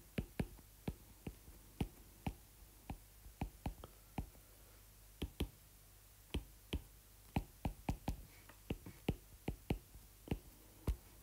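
Stylus tip tapping and clicking on a tablet's glass screen while handwriting: irregular sharp taps, about two or three a second, with short pauses between strokes.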